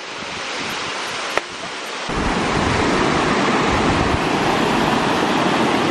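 Steady rush of a waterfall, with a single click about a second and a half in. About two seconds in the rush becomes louder and deeper.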